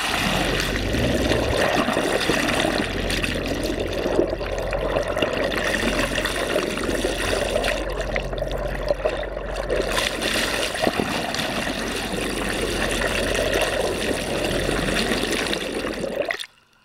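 Muffled rushing and gurgling of seawater around a camera held underwater, with a low steady hum underneath. It cuts off suddenly near the end as the camera comes out of the water.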